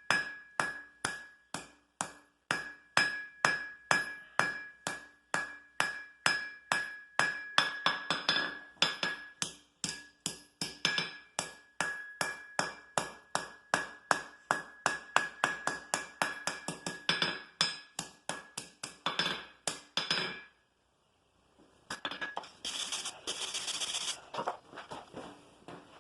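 Blacksmith's hand hammer striking hot iron on an anvil in a steady rhythm of about three blows a second, each blow ringing; the hammering stops about 20 seconds in. After a short pause comes a few seconds of rough scraping noise.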